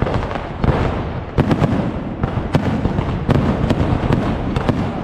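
Fireworks going off in quick succession: a constant low rumble of booms with many sharp cracks and crackles over it.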